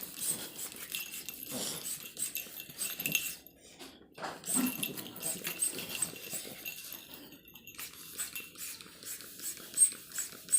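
Shih tzu making a hissing sound: repeated breathy hisses that come and go, with a couple of sharp clicks near the end.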